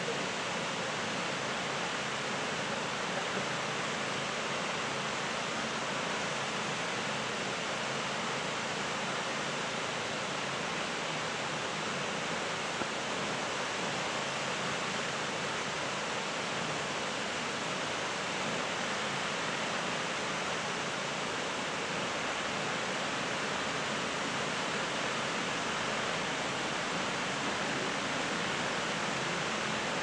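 A tall waterfall running: a steady, even rush of falling water.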